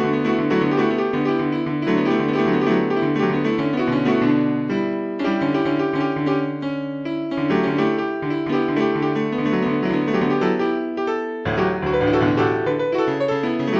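Solo piano music with sustained, layered chords, pausing briefly twice.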